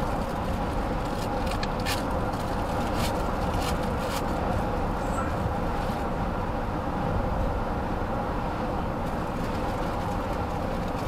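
Steady road and engine noise of a moving car heard from inside the cabin, with a few light ticks in the first half.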